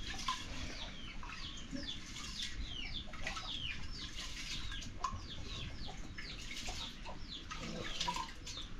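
Chicks peeping: short, high calls falling in pitch, several a second and often overlapping.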